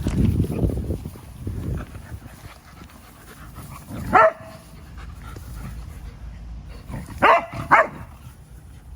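Dogs at play barking: one sharp bark about four seconds in and two more in quick succession near the end, with low rumbling scuffle noise at the start.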